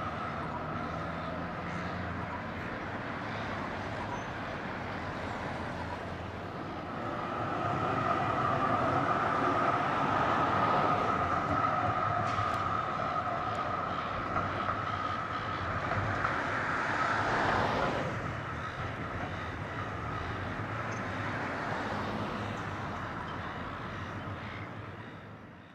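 Tram running by on rails with a steady high whine. It grows louder for about ten seconds in the middle, then eases off, and cuts off abruptly at the end.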